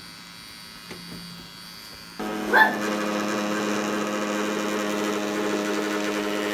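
CNC P6 tattoo pen switched on about two seconds in, its motor then running with a steady buzz.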